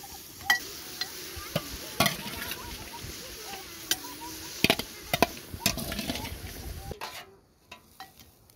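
Chopped okra sizzling in a metal cooking pot, with sharp clinks of a steel ladle striking the pot as it is stirred. The sizzle drops away suddenly near the end.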